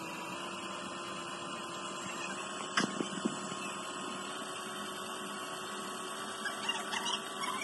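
Brake lathe running steadily with a constant hum, turning a brake disc or drum; a few light clicks about three seconds in.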